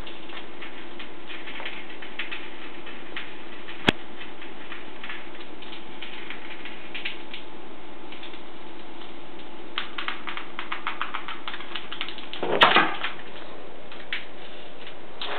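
Light, irregular clicking and tapping of a cat playing with a wand toy mouse on a hardwood floor, with a sharp click about four seconds in, quick runs of clicks from about ten seconds and a louder short scuffle near the end, over a steady low hum.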